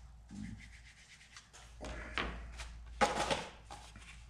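Rustling and scraping of packaging being handled while a phone case is unpacked, in irregular bursts, the loudest a little after three seconds in.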